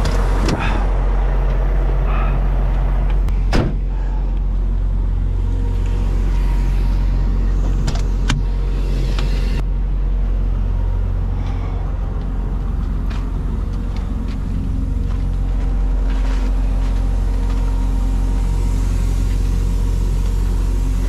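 Heavy truck's diesel engine idling steadily, a low even hum, with a few short clicks or knocks, the sharpest a few seconds in.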